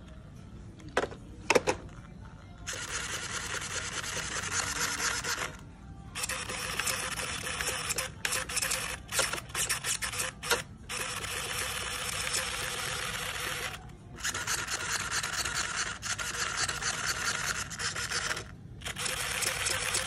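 Electric starter box spinning over a 1:8 nitro buggy's OS Speed glow engine in repeated bursts of a few seconds each, with short stop-start spins in between. The engine is not running in the pauses. Two sharp clicks come just after the first second.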